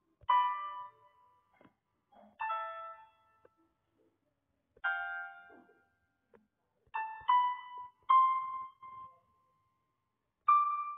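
Background music of slow, sparse piano notes, each struck and left to ring out and fade, with short silences between them.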